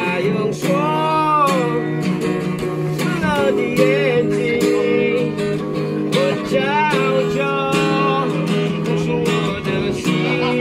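Music led by acoustic guitar, with a melody line that bends up and down in pitch.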